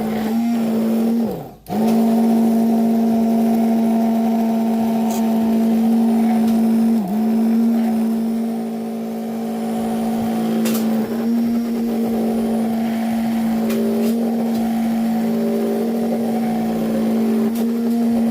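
Electric kitchen mixer's motor running at a steady high hum, mixing condensed-milk ingredients. Its pitch sags briefly a few times as the load grabs it, and it almost stops about a second and a half in before picking up speed again.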